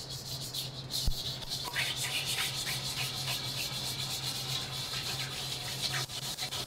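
Wire balloon whisk beaten fast against the inside of a stainless steel mixing bowl, a quick run of scraping strokes as oil is whisked into an orange vinaigrette to emulsify it. There is one sharper knock about a second in, over a steady low hum.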